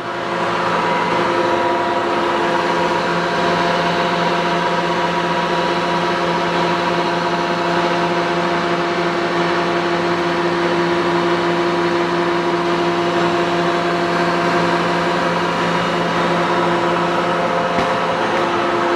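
Moriseiki MR1500G toolroom lathe running steadily under power: its 10 hp main drive and geared headstock give an even whine made of several steady tones over a mechanical hum.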